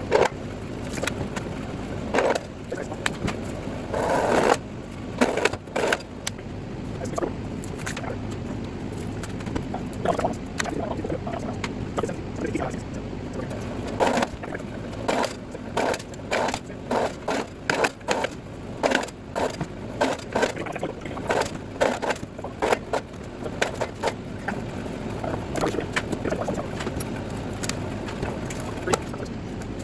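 Electric wire-stripping machine running as insulated wire feeds through its geared rollers and blade. A steady hum is broken by irregular clacks and knocks, most frequent in the middle stretch. The owner puts the clacking down to the rollers' gears slipping on each other, which wears them over time.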